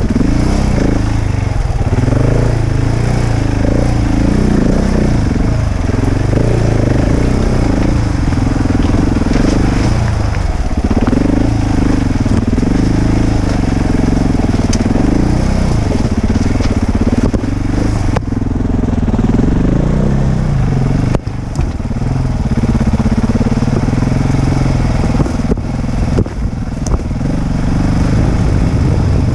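Adventure motorcycle's engine running under load on a rough trail, its pitch rising and falling with the throttle. The engine note dips briefly a few times in the second half.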